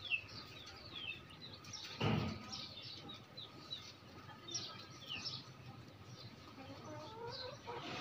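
Chicks peeping: many short, high, falling peeps, several a second. There is a single dull knock about two seconds in.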